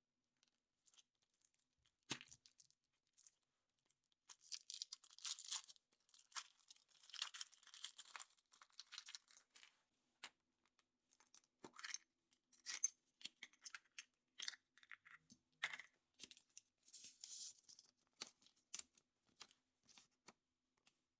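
Foil wrapper of a chocolate surprise egg being torn and crinkled in bursts, with scattered sharp clicks and snaps in between.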